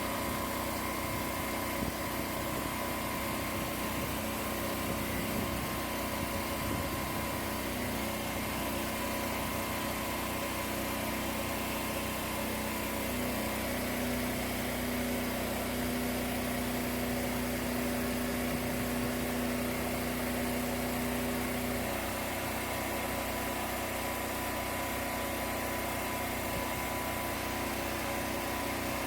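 An engine running steadily at idle, a constant hum with no sudden sounds; one tone in it grows stronger for a while in the middle, then drops back.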